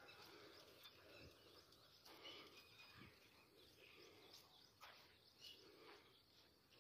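Near silence: faint outdoor background noise with a few faint, short high-pitched sounds scattered through it.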